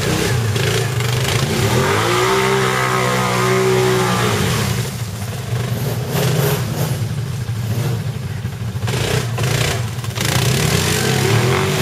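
ATV engine revving as the quad churns through deep mud, its pitch climbing about two seconds in and dropping again a couple of seconds later. Knocks and clatter come through the second half.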